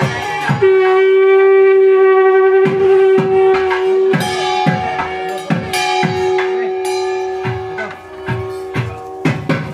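Procession music: a loud reed wind instrument holds one long high note for about three and a half seconds, then plays on over drum beats of about two strokes a second. The drums crowd together near the end.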